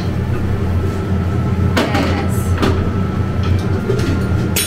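A steady low mechanical hum, with three sharp clinks of a metal utensil against a cooking pan about two, two and a half and four and a half seconds in.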